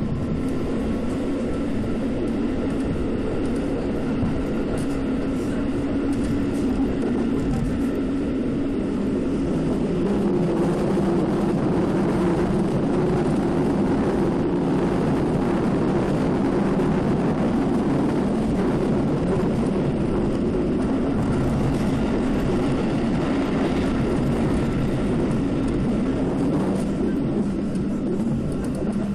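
Keikyu electric commuter train running at speed, heard from inside the car: a steady rumble of wheels on rail with a low motor hum. About ten seconds in it grows louder and fuller for around twelve seconds as the train runs through a tunnel.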